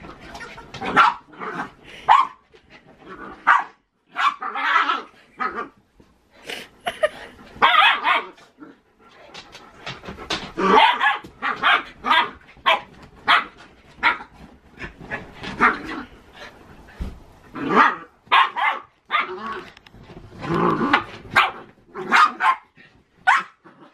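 Two puppies play-fighting, giving repeated short barks at an irregular pace.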